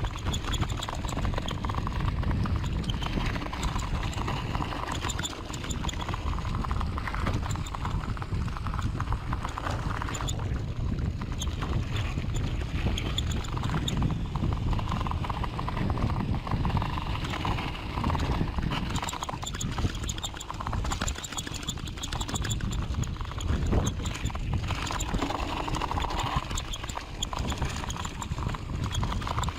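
Mountain bike being ridden over rough trail, rattling and knocking with many rapid, uneven clatters over a steady low rumble.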